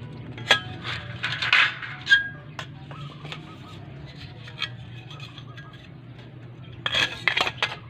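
Aluminium stair-nosing trim handled against a ceramic tile: light metallic clicks and clatters, in a cluster about a second in and another near the end.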